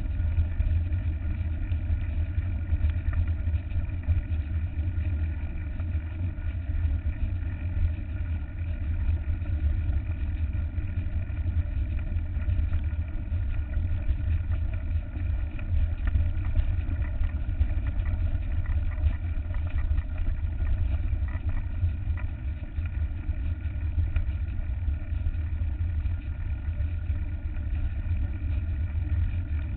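Mountain bike rolling down a gravel dirt track: a steady low rumble of wind on the bike-mounted microphone and tyres on loose stones, with faint rattles from the bike.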